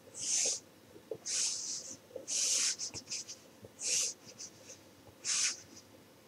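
Stylus tip scratching across a paper-effect matte screen protector on an iPad as she draws. About half a dozen short strokes are heard, each a brief scratchy hiss, with small ticks between them. It is the sound of a pencil on paper.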